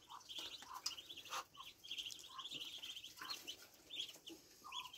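A flock of week-old muscovy ducklings peeping: many short, high, overlapping peeps, faint and continuous.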